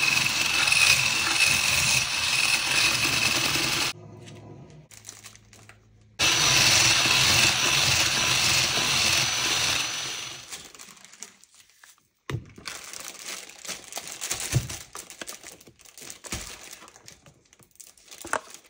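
Electric hand mixer running in a stainless steel bowl, beating egg yolks with sugar, in two runs of about four seconds each with a short pause between. Then it stops, and quieter clicks, scraping and packaging crinkling follow.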